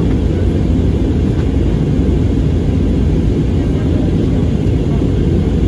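Steady low roar inside the cabin of an Airbus A320neo in flight: the engines and airflow heard from a window seat over the wing, with no change in level.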